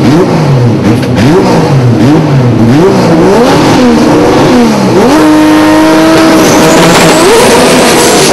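Drag racing car's engine revved up and down repeatedly, then about five seconds in taken up to high revs and held there steadily as the rear tyres spin in a burnout.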